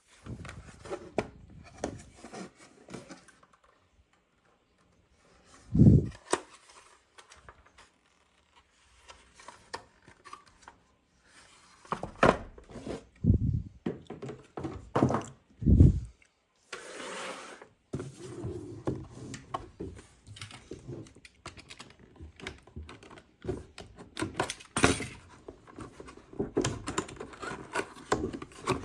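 Hands handling a boxed 1:18 diecast model car and its packaging: scattered knocks and thunks, a loud thump about six seconds in, several heavy thumps midway, a short rustle, then steady rubbing and scraping.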